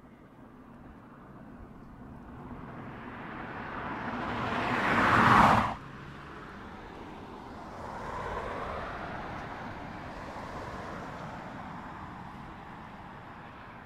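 A 2015 Mazda 6 sedan driving past close by, its engine and tyre noise building to a loud peak about five seconds in and then cutting off suddenly. A second, fainter pass follows about eight seconds in, then steady driving noise.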